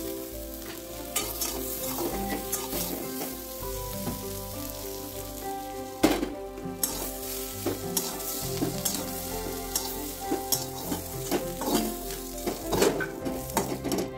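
Fried potato pieces sizzling in oil in a steel kadai, with a metal spatula scraping and clacking against the pan as they are lifted into a steel bowl. One sharper knock comes about six seconds in.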